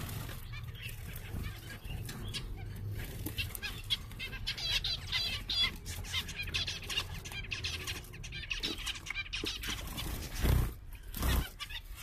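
A flock of zebra finches calling, many short chirps and beeps overlapping, with two brief thumps near the end.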